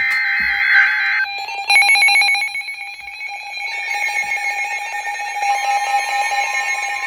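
A burst of Emergency Alert System SAME digital data, a harsh screech about a second long: the end-of-message code closing the NOAA Weather Radio warning. It is followed by an electronic alarm beeping in fast pulses, which settles into layered ringing tones.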